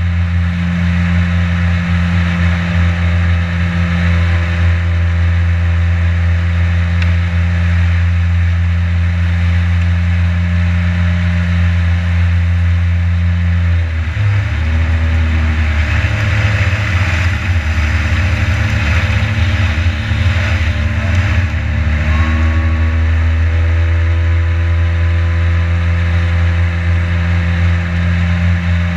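Boat motor running steadily under way. About halfway through it throttles back to a lower, rougher note, then speeds up again to its cruising pitch about eight seconds later.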